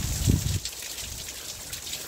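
Steady rain falling, with water pattering, dripping and trickling. A low rumble in the first half-second is the loudest thing in it.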